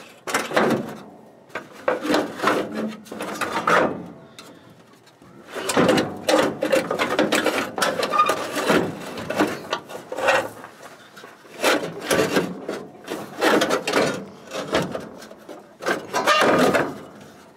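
Irregular scraping, rubbing and knocking of a 1976 Ford F-150's radiator and fan shroud being worked loose and shifted by hand in the engine bay, in bursts with short pauses.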